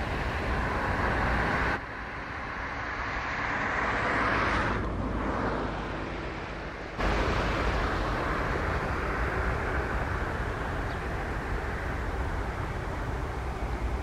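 Steady rumble and hiss of distant traffic, with one swell and fade in the middle like a vehicle passing; the background changes abruptly about two seconds in and again about seven seconds in.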